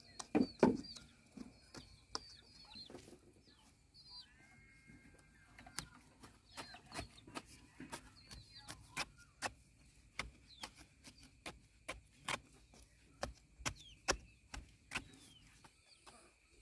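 A run of sharp knocks, coming roughly twice a second through most of the stretch, with chickens clucking and birds chirping.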